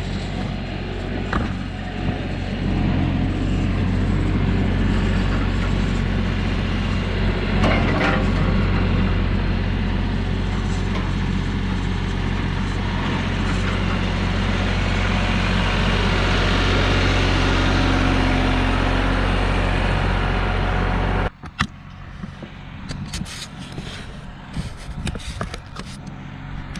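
A vehicle engine running steadily with a low hum. It stops abruptly about three-quarters of the way in, and only quieter scattered clicks and knocks follow.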